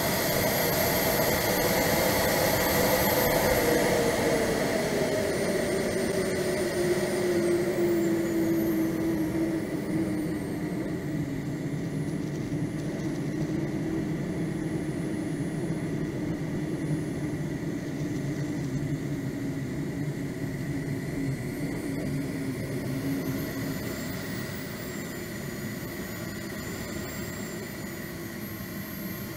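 Swiwin 170B model jet turbine heard from on board in flight, with air rushing past: its whine slides down in pitch over the first several seconds as it spools down, then runs steadily at lower power, rising slightly again near the end.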